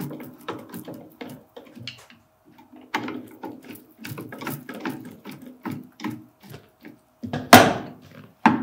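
Screwdriver turning the forward-pressure adjustment screws on a Look Pivot ski binding's heel piece: a run of small, irregular clicks and scrapes, with a louder knock about seven and a half seconds in.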